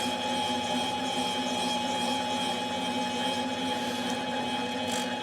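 Metal lathe running at a steady speed while machining a chainsaw cylinder, a constant mechanical drone with a few fixed tones that never change in pitch.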